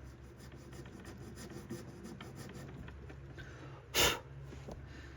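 Light, quick strokes of a small needle file rasping a string slot into an antler guitar nut. About four seconds in there is a short, loud rush of noise.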